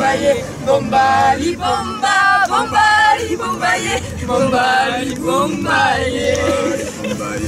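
A small group of men and women singing a song together without accompaniment, with some held notes.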